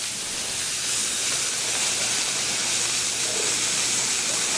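Shrimp in garlic butter and filet mignon skewers sizzling on a hot flat-top griddle: a steady frying hiss.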